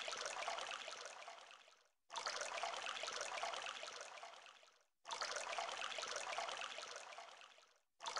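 Water running from a tap over hands being washed, heard in stretches of about three seconds that start suddenly and fade away, with short silent gaps between.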